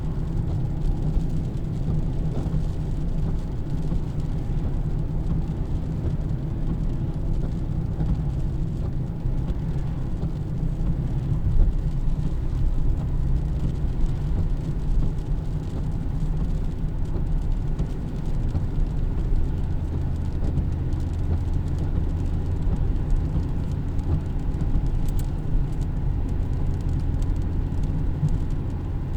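A car driving along a road: a steady low rumble of engine and tyre noise with no distinct events.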